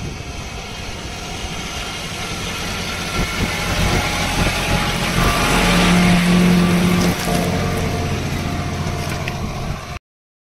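John Deere 5210 diesel tractor engine running under load while pulling a cultivator through dry soil, growing louder as it passes close by about six seconds in, then easing off. The sound cuts out abruptly near the end.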